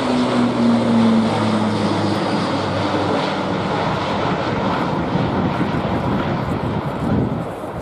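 Airbus A400M Atlas's four Europrop TP400 turboprop engines running as the transport climbs steeply away after takeoff. A low propeller hum sinks slightly in pitch over the first three seconds as the aircraft moves off, over a steady rush of engine noise.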